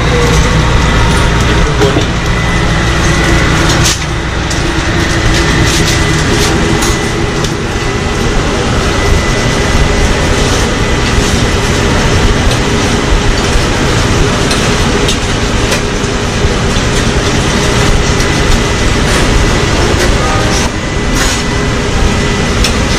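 Loud city street-stall ambience with no speech. For about four seconds a deep, steady hum sits under it; after that it is general street noise with traffic, broken by scattered clicks and knocks.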